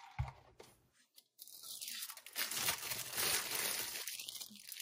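Paper burger wrapper crinkling and rustling as it is handled, starting about a second and a half in, after a soft thump near the start.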